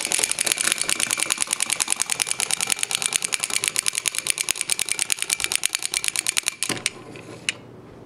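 Wind-up chattering-teeth toy clattering rapidly as it walks across a wooden tabletop, a fast even run of plastic clicks that stops abruptly about two-thirds of the way in as the spring runs down.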